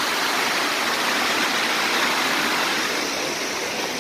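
Small waterfall of water cascading over a rock pile, a steady rushing splash that grows a little quieter near the end.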